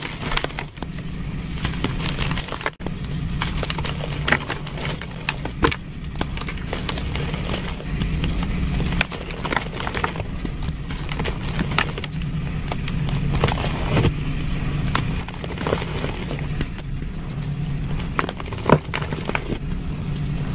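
Blocks of gym chalk crushed and crumbled by hand, with irregular crunchy crackles and snaps as the pieces break and grind, over a steady low hum. There is a brief dropout a little under three seconds in.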